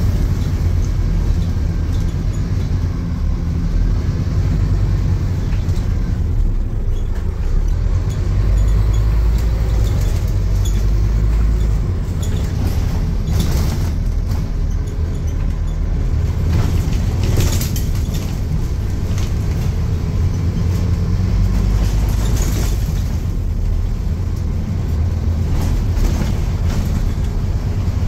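Scania N230UD double-decker bus heard from inside the lower deck while driving: a low diesel engine rumble with road noise that swells and eases twice as the bus pulls and slows. A few short rattles or knocks from the body sound midway.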